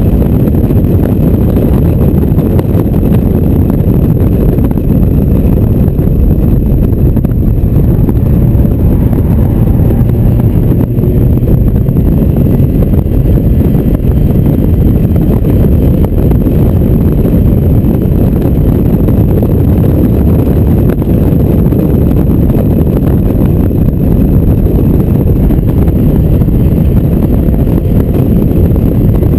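Loud, steady wind buffeting on the microphone in an open-top Mazda MX-5 at speed, mixed with its four-cylinder engine running.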